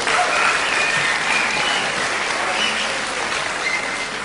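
Theatre audience laughing and applauding, the noise easing off gradually toward the end.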